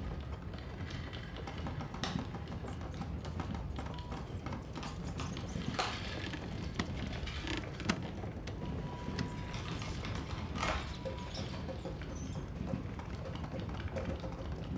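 Film sound design for a horror movie: a steady low rumble with scattered clicks and patter and a few short squeals, mixed with music.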